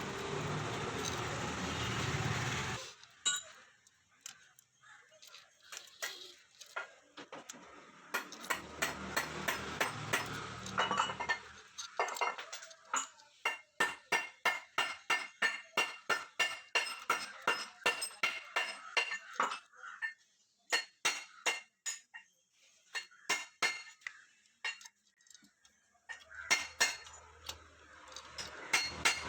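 Metal hand tools clinking and tapping against metal engine parts. Through the middle comes a run of sharp ringing clinks at about three a second.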